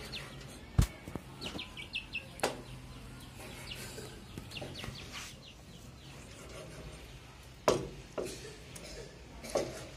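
Chickens clucking and chicks peeping in short high calls, with a few sharp knocks, the loudest about a second in and again near the end.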